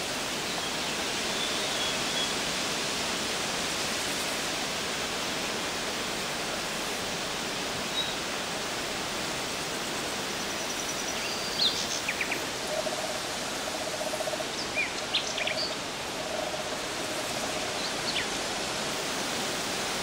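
Steady outdoor hiss of rural background noise, with a few short bird chirps in the second half and a low pulsing sound partway through.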